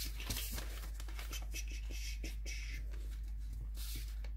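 A square of origami paper being folded and creased by hand on a table: several short papery rustles and scrapes over a steady low hum.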